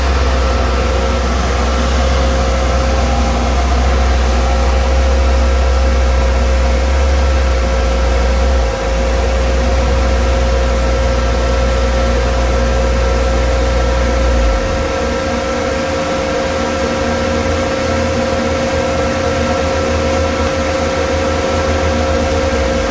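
Heavy recycling-plant machinery running: a steady mechanical hum with a constant whine over it. A deep low rumble under it drops away about two-thirds of the way through while the rest runs on.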